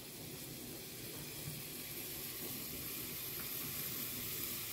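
Pieces of minced beef sizzling in hot oil in a frying pan: a steady frying hiss that grows slightly louder.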